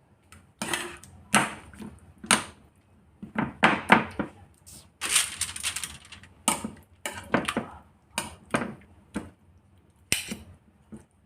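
Irregular clicks, knocks and clatter of kitchen handling on a baking tray, with a few longer clattering runs in the middle.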